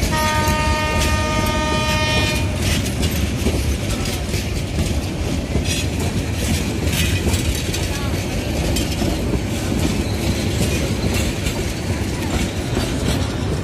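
Train horn sounding one blast of about two and a half seconds as the Bangladesh Railway intercity passenger train pulls away. After it comes the steady rumble of the coaches rolling past close by, with clicks of wheels over rail joints.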